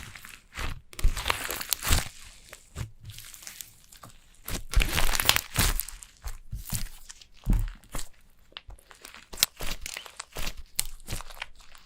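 Clay slime being worked by hand, giving a run of irregular sticky clicks and crackles, busiest about five seconds in.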